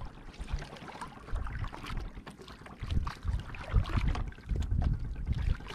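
Wooden paddle strokes pulling through the sea beside an outrigger canoe, with irregular splashing and a low wind rumble on the microphone.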